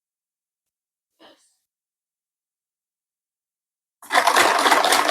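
Flour being sieved: a dense, scratchy rustle of the sieve being shaken starts suddenly near the end, after a faint short scrape about a second in.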